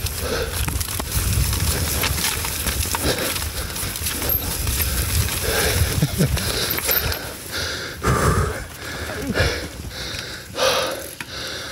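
Mountain biker breathing hard while riding over a muddy trail, with short puffs of breath about once a second in the second half over a steady low rumble from the ride.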